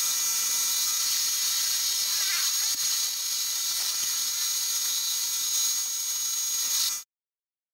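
Metal lathe turning, its boring bar cutting inside the bore of a spinning metal bar: a steady high whine over hiss. It cuts off suddenly about seven seconds in.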